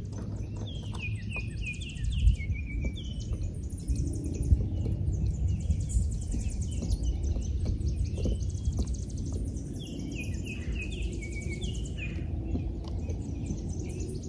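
Wind rumbling on the microphone, with songbirds singing over it: a short run of falling notes about a second in and again about ten seconds in, over high thin trills.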